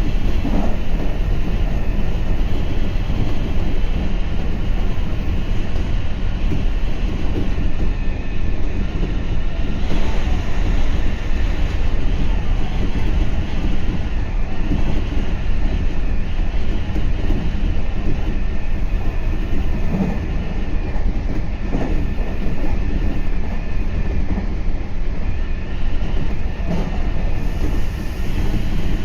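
Meitetsu 3500 series electric train running, heard from inside the front car: a steady rumble of wheels on rail with a few faint knocks spread through it.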